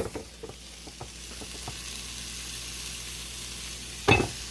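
Sirloin steak sizzling steadily as it cooks, with a few small clicks in the first second or two and one short, loud knock about four seconds in.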